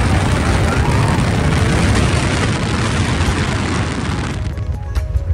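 Loud, steady low rumble heard from inside a moving car, with music playing. About four seconds in, the hiss above the rumble drops away and the rumble carries on.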